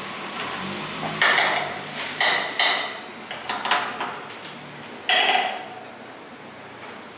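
Stainless-steel clanks and knocks as an electric stirring unit is unclamped and lifted off the rim of a large steel pot of soy milk, its paddle rattling against the metal. About six knocks come at irregular intervals, one of the loudest about five seconds in.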